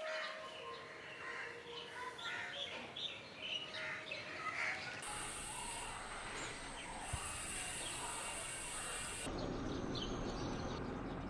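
Birds chirping over outdoor background noise for the first few seconds; then the background changes suddenly twice, first to a steady hiss and then to a lower, rougher rumble.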